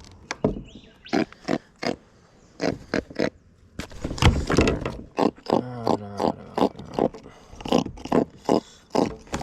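A freshly caught grunter fish grunting: a string of short, sharp croaks with a longer pitched croak about six seconds in.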